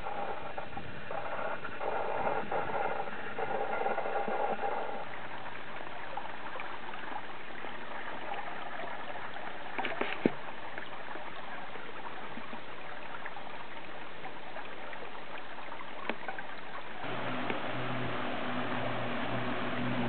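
A small woodland stream rushing over rocks, running full after a day of heavy rain: a steady wash of water noise, with a short click about halfway through.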